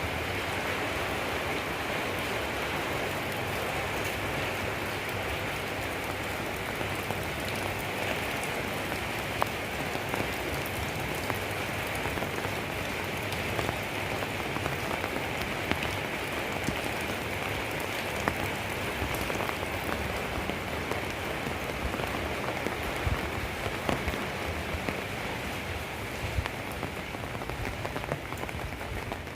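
Steady rain falling, a continuous hiss with scattered sharper drop hits.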